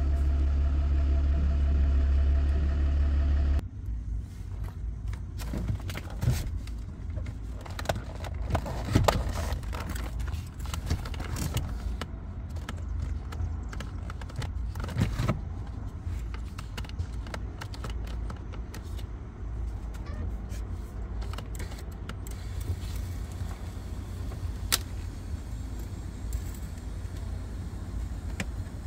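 Car seat being set back onto its floor mounting points, with scattered metal clicks, knocks and rattles as it is positioned and its bolts are started by hand, over a low steady hum. A louder low hum cuts off suddenly a few seconds in.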